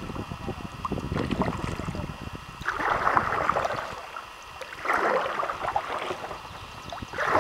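Kayak paddle blades dipping and pulling through river water: three splashy strokes about two seconds apart.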